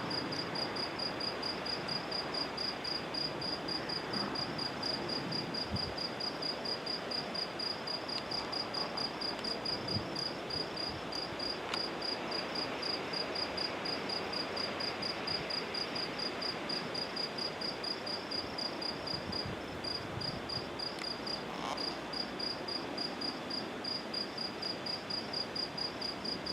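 A cricket chirping steadily at night, about four even chirps a second, with a brief break near the end, over a steady background hiss.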